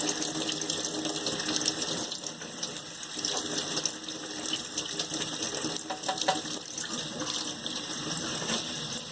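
Tap running steadily into the central hole of a dishwasher spray arm whose main holes are taped over, forcing the water out through the end jets to clear them of blockage.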